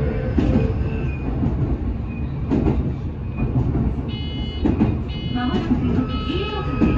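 Inside a Shizuoka Railway two-car commuter train while it runs: a steady rumble of wheels and running gear. From about four seconds in, a cluster of high steady tones sounds twice over the rumble.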